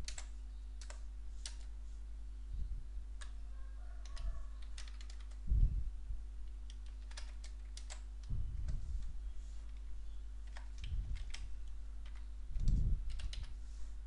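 Typing on a computer keyboard: irregular key clicks, with two louder dull low thumps, one a little before halfway and one near the end, over a steady low hum.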